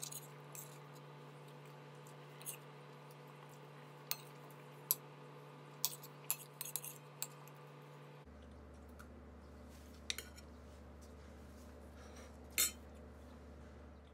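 Metal spoon clinking and scraping against a china plate while eating, in a dozen or so scattered clinks, the loudest about five seconds in and near the end. A steady low hum runs beneath and drops in pitch about eight seconds in.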